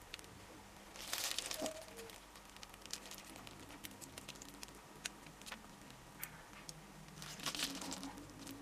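Plastic piping bag crinkling as it is squeezed to pipe out cream, with small clicks and two louder bursts of rustling, about a second in and near the end.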